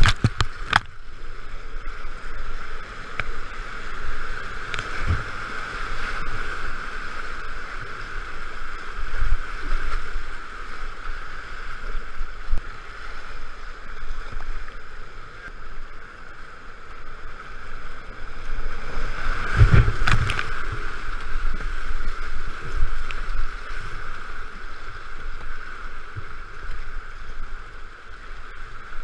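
Whitewater rapid rushing steadily around a kayak, heard close up from a camera riding the current, with sudden splashes and knocks of water hitting it near the start, about five seconds in, and again about twenty seconds in.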